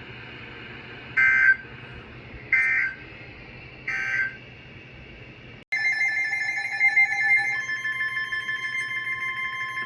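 Three short warbling data bursts of Emergency Alert System end-of-message tones, about a second and a half apart. About six seconds in, a steady electronic alert tone starts abruptly, and near the end it shifts to a single lower steady tone.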